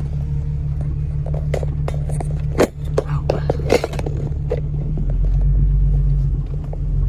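Jeep Cherokee's engine running at low speed, heard from inside the cabin while crawling down a rough dirt trail. A scatter of sharp knocks and rattles comes in the middle, and the low drone grows louder about five seconds in.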